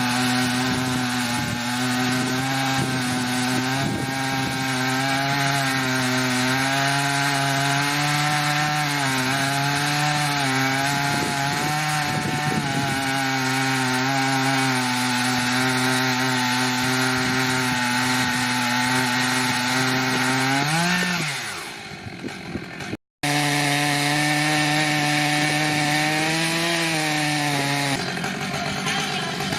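Stihl MS880 two-stroke chainsaw running under load, ripping a red oak log lengthwise on an Alaskan chainsaw mill; the engine note holds steady with small wavers. About three quarters through it falls in pitch and fades, breaks off for a moment, then comes back steady.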